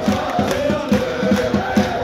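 Football supporters chanting in unison, many voices holding a sung line over a steady low beat of about three thumps a second.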